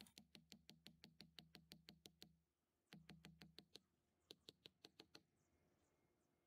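Faint, rapid hammer taps on the top of a wooden garden stake, driving it into the soil: about six knocks a second in three runs.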